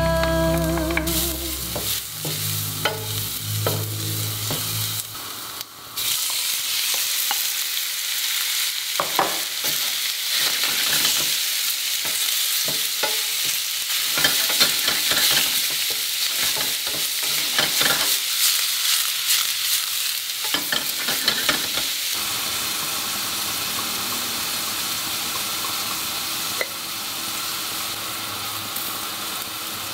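Garlic and seafood (shrimp, squid, mussels) sizzling in hot oil in a stainless steel frying pan, stirred with a wooden spoon that clicks and scrapes against the pan. The clicking is busiest in the middle, and the sizzle settles to a steady hiss over the last several seconds.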